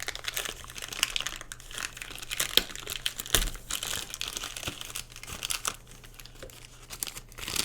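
Headphone packaging being handled and opened: irregular crinkling with small clicks and rustles, and one soft thump about three and a half seconds in.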